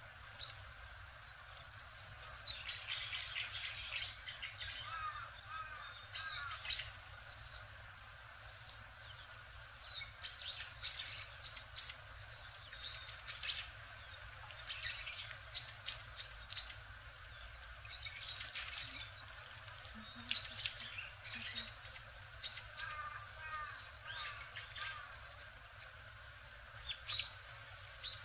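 Small songbirds calling with short, high chirps in scattered runs, a few lower sweeping notes among them. A sharp click near the end.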